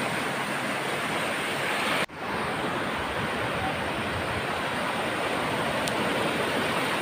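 Ocean surf: waves breaking and washing up over the shallows, a steady rushing noise with a momentary break about two seconds in.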